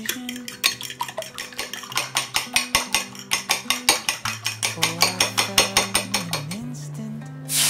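A fork whisking eggs in a glass bowl, clinking against the glass in a fast, even rhythm of about five or six strokes a second, over soft background music. A steady rushing noise starts just before the end.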